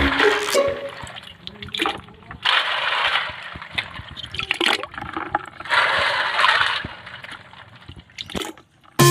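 Water sloshing and splashing as a hand stirs and scoops kuhol (freshwater snails) in a basin and bucket of water, with the shells clicking against each other and plopping into the water. There are two louder spells of splashing, about three and six seconds in.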